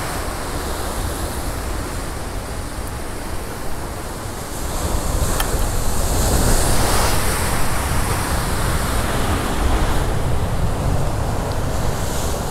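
Ocean surf breaking and washing over rocks, with wind rumbling on the microphone. The rush of water swells louder about five seconds in and eases off again near the end.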